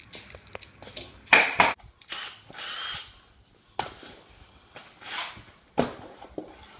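Scattered clicks, knocks and short rustling bursts of handling sounds around the Jeep, with its engine already shut off. The loudest rustle comes about a second and a half in, and there is a sharp knock near the end.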